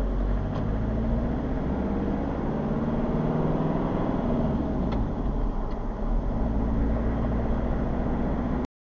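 Engine hum and tyre and road noise of a moving vehicle, heard from inside it, with the engine pitch drifting up and down slightly. The sound cuts out for about half a second near the end.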